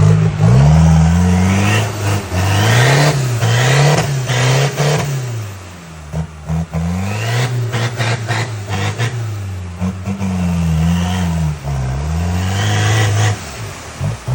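Troller T4's 3.0-litre four-cylinder turbodiesel engine revving up and falling back again and again as the 4x4 works over an off-road trail, with scattered knocks and clatter.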